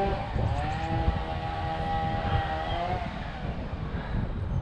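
A cow mooing: one long drawn-out moo, rising at the start and falling away at the end, lasting about two and a half seconds, over a low, uneven rumble.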